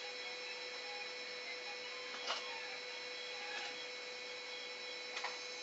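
Inkjet-style printer mechanism running with a steady hum, with a short clack about two seconds in and another near the end.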